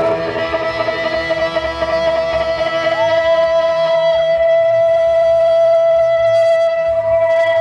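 Live band music led by a guitar holding one long sustained note, with a second, higher note layered over it for about a second midway.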